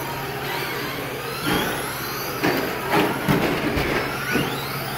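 Several stock Traxxas Slash electric RC trucks racing, their motors whining and sliding up and down in pitch as they speed up and slow down, with a handful of sharp knocks in the middle.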